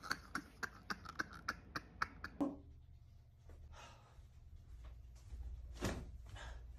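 A man laughing hard in quick breathy bursts that stop about two and a half seconds in. After that there is a quiet room with a low hum and a few soft rustles.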